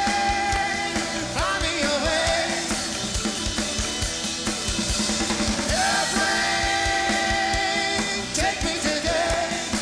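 Live rock band playing: drum kit and bass under a lead line of long held notes that slide up into pitch several times.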